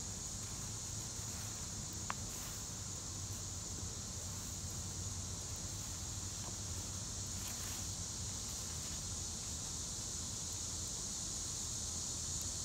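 Insects droning steadily in a high, unbroken band, with a single sharp click about two seconds in.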